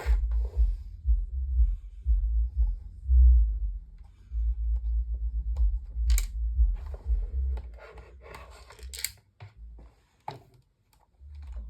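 A screw being driven into a plastic desk-fan housing with a screwdriver: scattered small clicks and scrapes of metal on plastic over a low handling rumble. The rumble dies away about nine seconds in.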